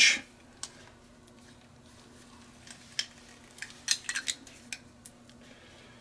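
Utility knife blade scoring around the outer jacket of RG213 coax cable: faint scraping with a scatter of light clicks, most of them in the middle, over a faint steady hum.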